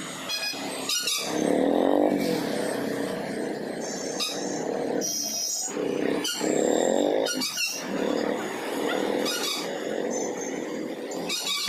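Motorbike and scooter traffic heard from among it: engines running, their pitch rising and falling with speed, with several short high-pitched sounds over the top.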